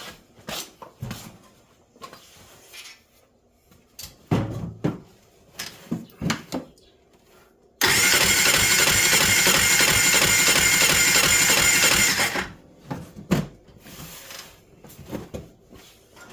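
Polaris RZR 800 engine turned over by its electric starter for about four seconds during a compression test, cranking steadily without firing; it starts and stops abruptly. Before it come scattered clicks and knocks of tools and the gauge being handled.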